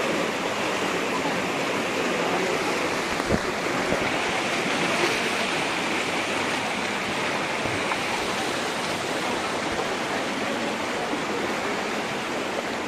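Floodwater rushing steadily through a street, a continuous churning water noise. One brief low thump a little over three seconds in.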